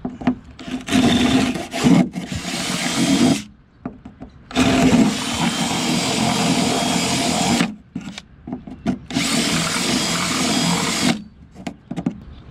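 Hand-held power drill boring into a sailboat's fiberglass cockpit side. It runs in three spells of two to three seconds each, with short pauses between them.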